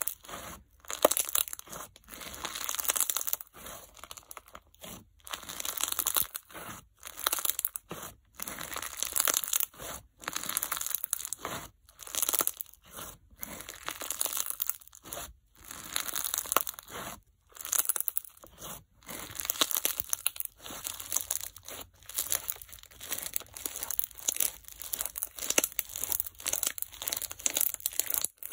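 Crunch slime made with bingsu beads and microbeads, squeezed and kneaded by hand, giving dense crackling and popping. The sound comes in bursts with short breaks between squeezes.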